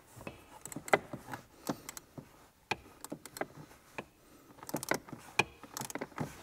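Light, irregular clicks and small metallic rattles from a hand driver working on the blower motor's mounting bolts, with a few quick runs of clicks about five and six seconds in.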